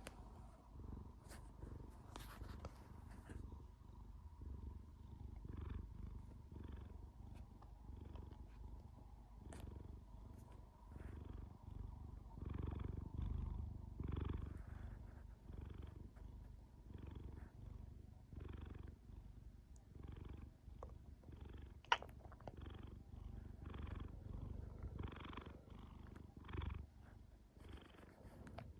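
Domestic cat purring steadily in close, regular pulses. A single sharp click about three quarters of the way through.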